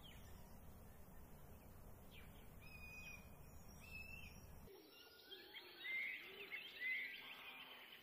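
Birds chirping and whistling over a low background rumble: a few clear whistled notes at first, then about two-thirds of the way through the rumble stops abruptly and a busier chorus of chirps takes over, loudest in two bursts near the end.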